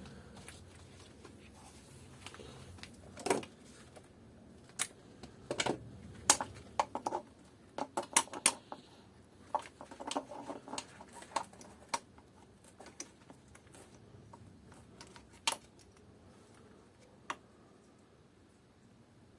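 Irregular sharp metallic clinks and taps of hand tools on an engine's metal as a nut is worked loose with a socket. The clinks are sporadic and come thickest in the first half.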